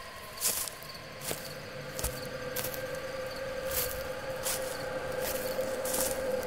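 Night-forest ambience for a horror story: a steady eerie drone tone that slowly swells louder, under irregular soft crackling rustles.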